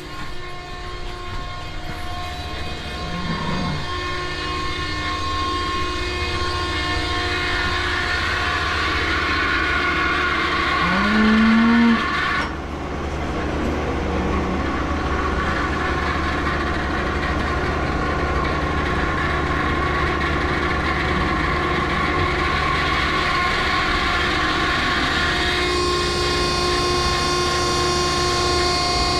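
Barn machinery running with a steady drone of several humming tones. A cow moos briefly a few seconds in, and again, louder, about eleven seconds in.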